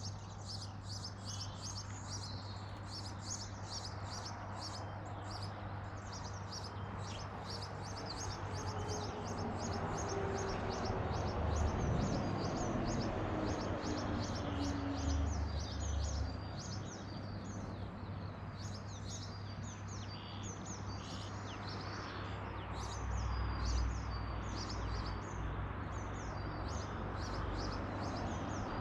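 Small garden birds chirping, short high calls repeated quickly and evenly throughout, over a steady low hum. A low rumble with a slowly falling tone swells and fades in the middle.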